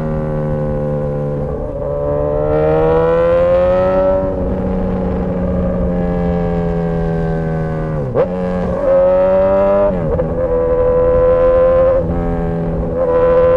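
Straight-piped Suzuki GSX-S1000 inline-four motorcycle engine running under way, its exhaust pitch climbing slowly and dropping briefly at gear changes, most sharply about eight seconds in.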